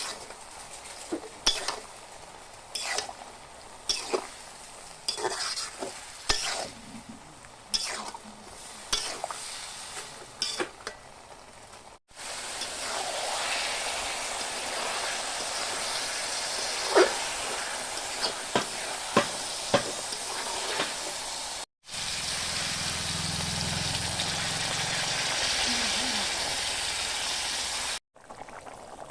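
A metal spatula scrapes and knocks in a cooking pan about once a second while food is stirred. Then comes steady sizzling of food frying in oil, with a few sharp spatula clicks.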